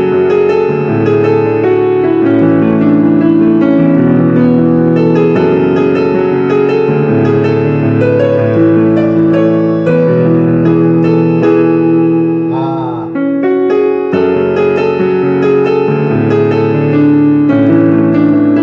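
Yamaha PSR-E363 portable keyboard playing a song on its piano voice with the built-in sustain switched on, so the chords and melody notes ring on and overlap. The playing breaks off briefly about thirteen seconds in.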